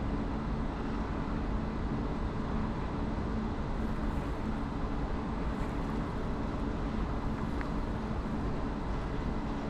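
Steady low hum and rumble of an ÖBB Talent electric multiple unit moving slowly along the platform.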